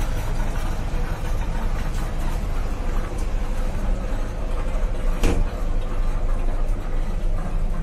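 Steady low rumble of a passenger train coach running along the track, heard from inside the coach, with a single sharp click about five seconds in.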